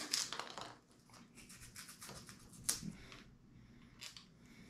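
Box cutter blade slicing and scraping cured expanding spray foam off a PVC pipe: a quick run of short rasping cuts, then fewer, fainter ones.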